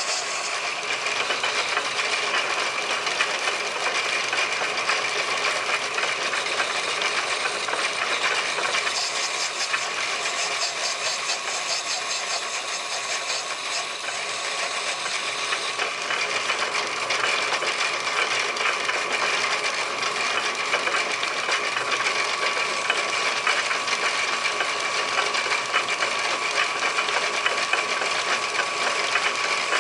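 Metal lathe running steadily, turning a cast brass piston blank, with a constant whine and a fine rapid rattle.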